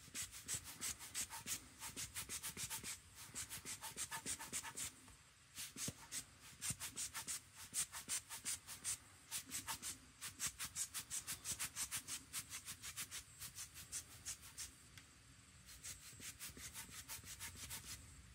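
Rubber bulb air blower squeezed over and over, a fast series of short hissing air puffs about four a second, in runs with brief pauses between them.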